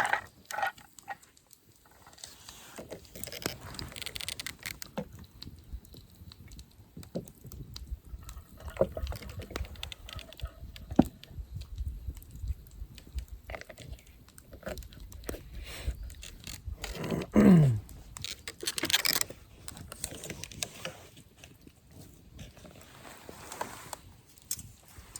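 Close-up eating sounds: a person chewing steak, with scattered small wet clicks and smacks. About seventeen seconds in there is a brief loud sound sliding down in pitch.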